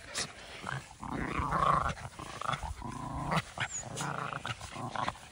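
Miniature schnauzers play-growling as they wrestle, in a series of short growls, the loudest about a second and a half in.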